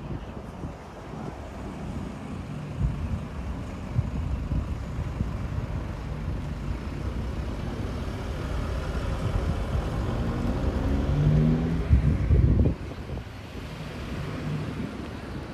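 Street traffic: a motor vehicle's engine passes close by, growing louder to a peak about twelve seconds in, then dropping away quickly.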